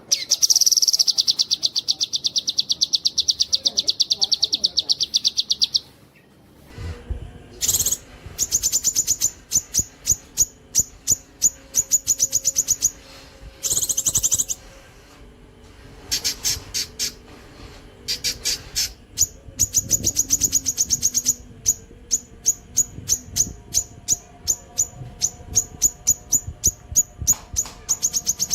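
Cucak kinoi singing long, rapid trills of high, sharp repeated notes, the fast 'nembak' delivery. One unbroken trill runs for about five seconds at the start, followed by a string of shorter trills with brief pauses between them.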